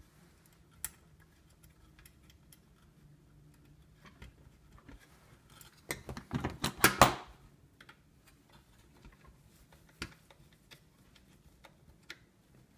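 Small clicks and rattles of hand tools and wiring being handled at a sheet-metal electrical box. The loudest is a quick cluster of clattering clicks about six to seven seconds in, as pliers and wire strippers are handled on the table.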